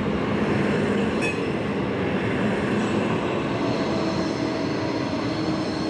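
Electric city tram running past on street track: a steady rolling hum, with a high-pitched whine growing stronger in the second half.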